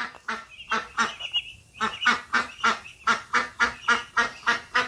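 Domestic ducks quacking in a quick run of short, repeated quacks. The quacks are scattered at first, then come about four a second and a little louder from about two seconds in.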